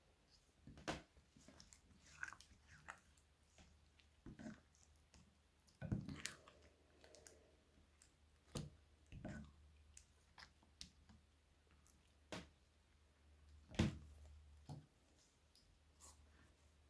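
Slime being stirred and folded with a silicone spatula in a glass bowl: faint sticky clicks and wet squelches at irregular intervals, a few louder ones along the way.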